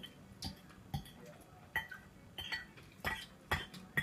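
Metal fork clinking and scraping against a ceramic bowl while gathering up noodles: about eight sharp, irregular clinks, several ringing briefly.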